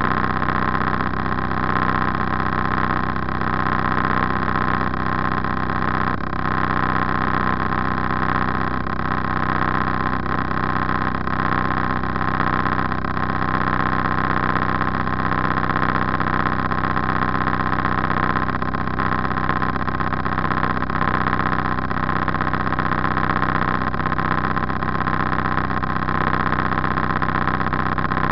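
A river motor cruiser's engine running steadily under way, an even drone that holds the same pace throughout.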